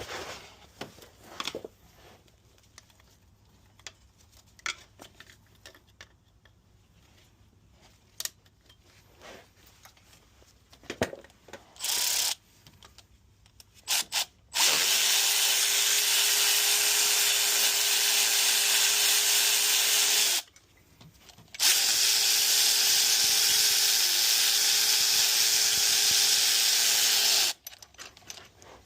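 Scattered light clicks and knocks of tools for the first dozen seconds, then a cordless power tool running: two short spurts, followed by two long steady runs of about six seconds each with a short pause between.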